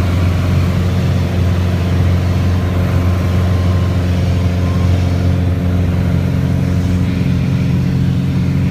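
Piper Arrow's piston engine and propeller running steadily at climb power just after takeoff, heard from inside the cockpit as a loud, unchanging drone.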